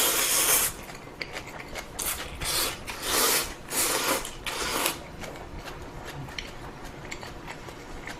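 Ramen noodles being slurped in about six loud hissing pulls over the first five seconds, then chewing with many small wet clicks.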